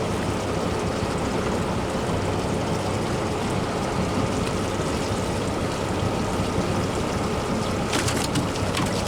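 Fishing boat's motor running steadily under a constant rush of water and wind noise, with a few light clicks near the end.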